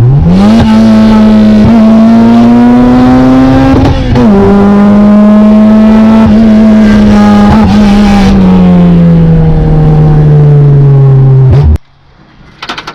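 1994 Acura Integra GSR's four-cylinder engine running very loud on an open header, with no exhaust fitted past the header. Its pitch climbs quickly at the start and keeps rising, drops briefly about four seconds in like a gear change, then sinks slowly as the car eases off; the sound cuts off abruptly near the end.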